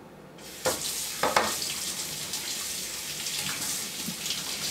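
Kitchen tap turned on about half a second in and running steadily, with splashes as hands are rinsed under the stream.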